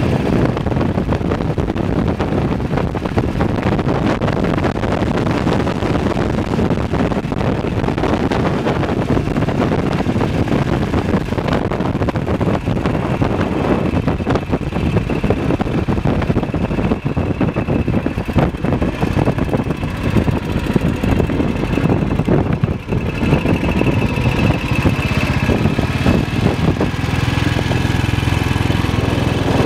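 BSA WM20 motorcycle's single-cylinder side-valve engine running under way, mixed with wind and wet-road noise at the handlebars. The throttle eases off briefly about two-thirds of the way through, and near the end the sound settles into a steadier, lower engine note.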